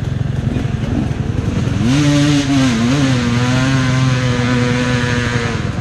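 Dirt bike engine running at a low rumble, then revved up about two seconds in and held at a steady pitch with a brief dip, cutting back near the end.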